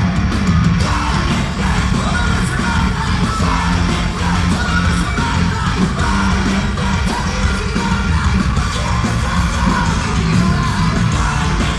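Loud live punk rock played by a full band, with yelled vocals, heard from within the audience in a large arena.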